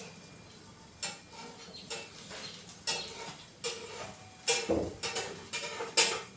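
Metal spoon scraping and knocking against a frying pan as loose bits of egg are pushed in from the edges, in a run of irregular strokes with a short ring, the loudest near the end.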